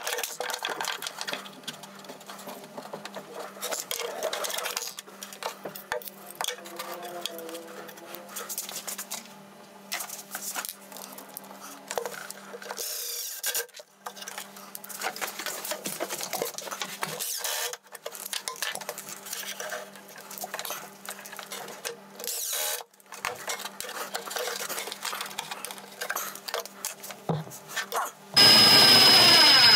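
Workshop handling sounds while ball-bearing drawer slides are fitted inside a plywood cabinet: clicks and knocks of the metal slides and clamps, and a cordless drill/driver running in short spurts as screws go in. A much louder metallic rattle starts near the end.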